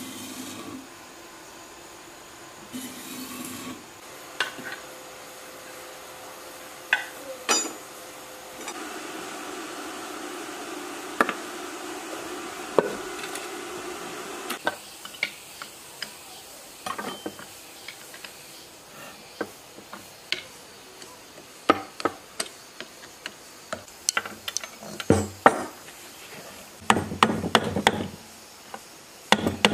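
Metal hand tools knocking, tapping and scraping on old engine parts: scattered sharp knocks at first, growing into quick, dense clusters of clanks in the last few seconds.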